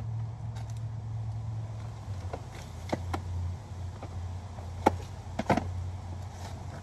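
Several sharp plastic clicks and knocks as an infant car seat and stroller are handled, the loudest near five seconds in, over a steady low hum.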